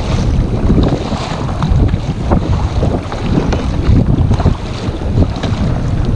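Heavy wind buffeting the microphone, with sea water sloshing and splashing against a kayak in choppy water.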